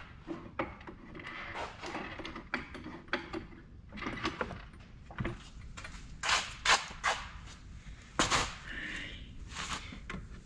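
Scattered metal clicks, clanks and rattles of a tool or jack being handled and set in place, with the sharpest knocks clustered about six to seven seconds in and once more a little after eight seconds.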